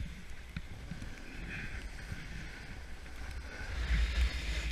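Snowboard sliding and carving over groomed snow, a steady scraping hiss that grows louder near the end, with wind buffeting the microphone as a low rumble.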